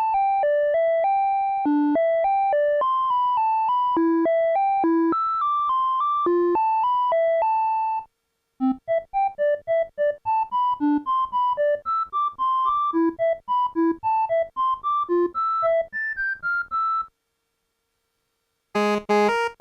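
Casio VL-Tone VL-5 mini keyboard playing a simple melody over low bass notes in a plain electronic tone. After a brief break about halfway it plays quicker, shorter notes, stops for a moment, and near the end a brighter, buzzier voice comes in.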